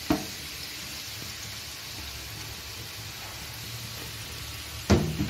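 Thread chicken shallow-frying in oil in a non-stick frying pan over a medium flame: steady sizzling and bubbling. A short knock comes just after the start and a louder one near the end.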